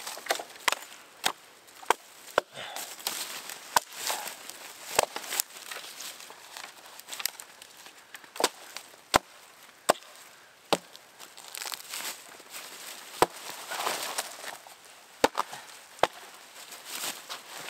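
An axe chopping into wood: about a dozen sharp blows at irregular intervals, with softer rustling and crunching between them.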